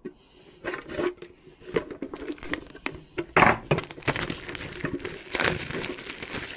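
Clear plastic shrink wrap crinkling and tearing as it is pulled off a card tin by hand, in quick irregular crackles. The loudest tear comes about three and a half seconds in, and the crackling grows dense near the end.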